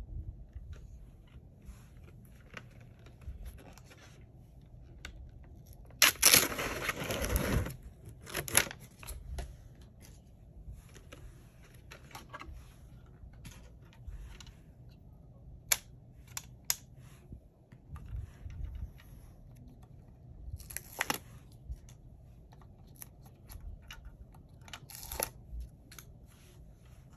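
Handling noise while a Dexcom glucose sensor is being changed. About six seconds in there is one loud burst of tearing that lasts over a second, from packaging or adhesive being pulled open. After it come scattered sharp clicks and taps as the sensor applicator is handled and pressed on.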